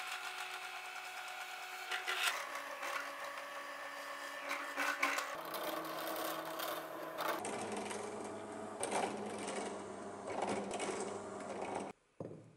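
Bench drill press running, its bit boring into a small wooden block with a rough grinding hiss over the steady motor hum, then a conical bit widening the hole. The sound cuts off suddenly near the end.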